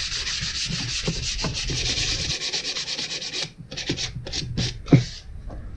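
Hand sanding of a walnut piece with sandpaper in quick, even back-and-forth strokes. After about three and a half seconds it thins to a few separate strokes, with a knock just before it stops.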